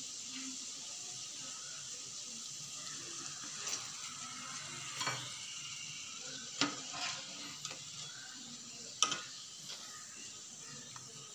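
Mutton keema vadas frying in hot oil in a kadai, a steady sizzle, with several sharp clinks of a wire mesh skimmer against the pan as the browned vadas are lifted out.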